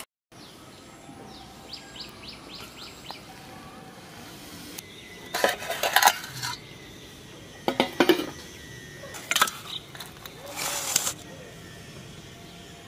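Metal spoon clinking and scraping against a stainless steel bowl while serving fish curry, in four short bursts of sharp clinks in the second half.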